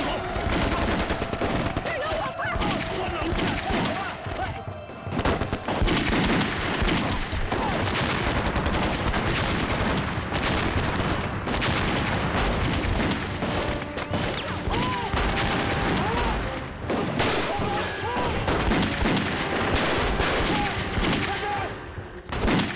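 Dense battle gunfire: many rifles and machine guns firing rapidly and continuously, shot over shot, as in a staged film battle.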